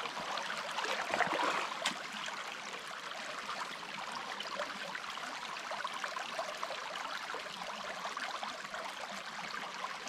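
Small rocky creek running over stones and through shallow riffles: a steady babble of water.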